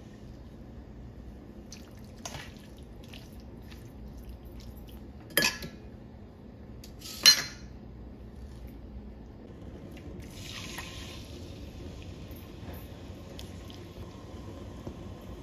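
Light clinks, then two sharp metal clanks of kitchen utensils against metal bowls. From about ten seconds in, a steady hiss of marinated chicken frying in hot oil in a pan.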